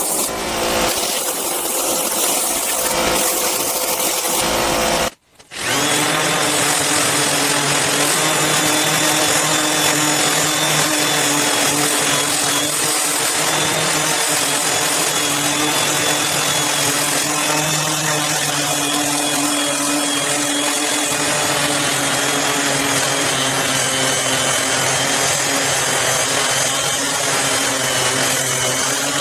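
Electric random-orbit sander running steadily on a wood slab, sanding back the charred surface of Lichtenberg fractal burns. Before it there are a few seconds of other machine noise, then a brief dropout about five seconds in.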